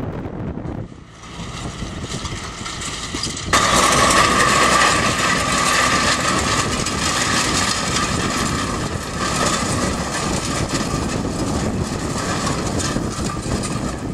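Compact tractor engine running as it tows a steel disc harrow, the discs clattering and grinding over the ground. The sound dips briefly about a second in and jumps suddenly louder about three and a half seconds in, then stays steady and harsh.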